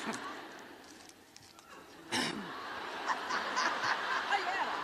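Commencement audience laughing and murmuring, starting with a sharp burst about two seconds in.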